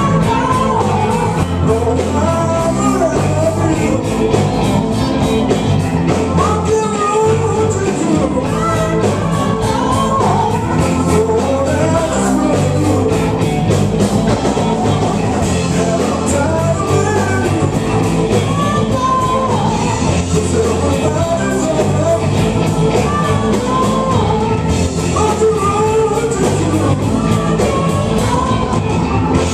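Live rock band playing at full volume: electric guitar, electronic keyboard and drums with a steady beat, and voices singing along at the microphones.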